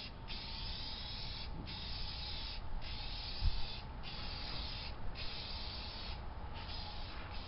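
Aerosol spray paint can (rattle can) hissing in a run of bursts about a second long, each cut by a brief pause as the nozzle is let off and pressed again. A dull thump about halfway through.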